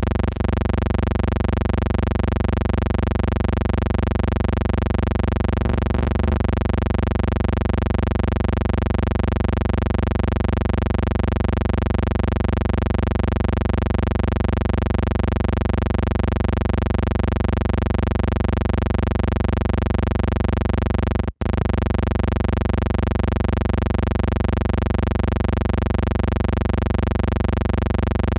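A steady electrical buzzing hum with many overtones, unchanging throughout, with a momentary dropout about 21 seconds in. It is noise in the film transfer, not sound from the scene, since the footage is silent.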